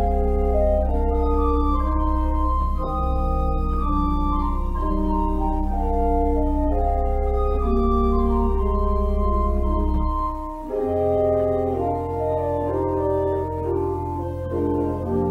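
Church organ playing a slow piece in sustained chords over a held pedal bass; about ten and a half seconds in, the pedal bass moves up to a higher note.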